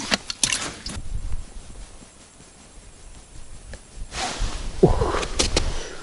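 Clicks and knocks as a perch is dropped into a plastic tackle box, then a lull. About four seconds in, rustling starts, with a short falling tone and a few more clicks as the ice rod is picked up and lifted.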